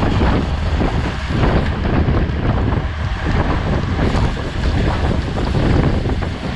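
Wind buffeting an action camera's microphone on a racing bicycle: a loud, steady rushing with a low rumble that wavers slightly in level.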